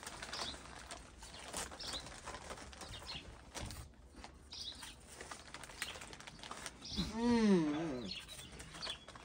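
A boy lets out a long moan about seven seconds in, rising and falling in pitch, while chewing on a mouthful of crunchy cheese puffs. A bird chirps repeatedly in the background, about once every second and a half.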